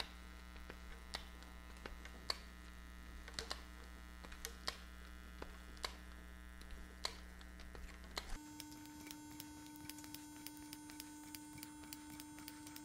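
Faint, steady electrical hum whose tone changes about eight seconds in. Over it come faint, irregular clicks from a cleaning rod with an abrasive-pasted patch being stroked back and forth through a Barrett MRAD rifle barrel.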